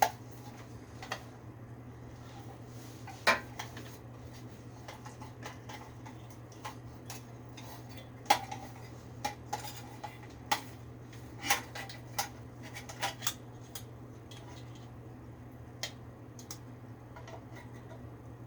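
Scattered sharp metallic clinks and clicks of hand tools and small metal parts being handled while working on a window air-conditioning unit, over a steady low hum.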